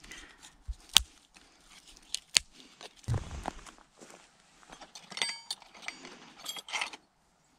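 Close handling sounds of a camp being set up: sharp snaps and clicks of twigs, a dull thud, and rustling on dry grass. About two thirds of the way through there is a short ringing clink as small gear is handled.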